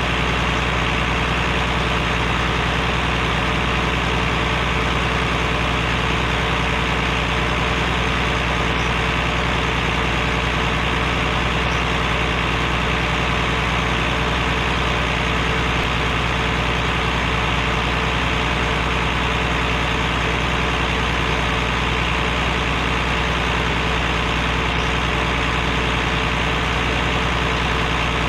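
A vehicle engine idling steadily at an even, unchanging speed, with a constant low drone.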